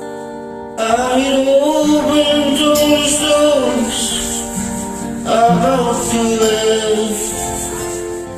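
Karaoke singing over a soft backing track of sustained accompaniment; the voice comes in about a second in and sings two long phrases with a short breath between them.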